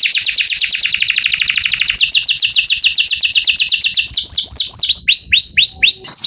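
Male canary singing a fast trill of repeated downward-sweeping whistled notes. The trill slows about two seconds in and again near the end into wider, slower sweeps.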